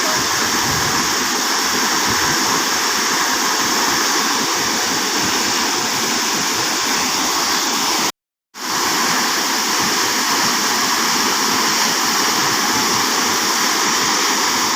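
Waterfall: a steady rush of falling water. Just past the middle it cuts off suddenly to silence for about half a second, then quickly comes back.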